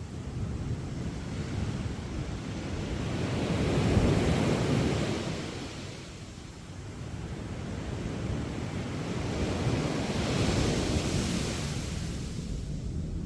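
Sea waves breaking and washing up on a beach, in two slow surges: one about four seconds in and another near the end, easing off in between.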